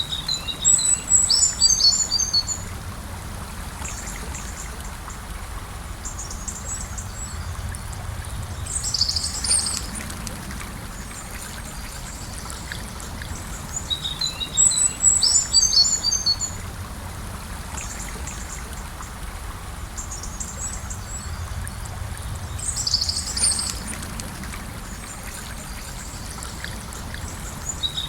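Steady rush and trickle of a gently flowing river, with a small songbird's high chirping phrases breaking in four times, the loudest sounds over the water.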